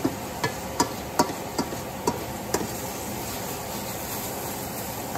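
Spatula knocking and scraping against a stainless steel pan while stirring sautéing tomatoes and onions: about seven sharp taps in the first two and a half seconds, then only a steady hiss.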